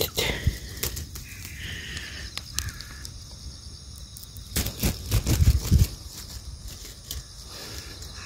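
Rustling and low thumps of footsteps through grass and the small stick-and-film model being picked up, with a cluster of louder low thumps a little past halfway and a few short clicks.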